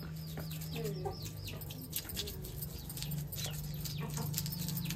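Small knife scraping scales off a whole fish in short, irregular strokes, with birds chirping in quick falling notes and hens clucking around it, over a steady low hum.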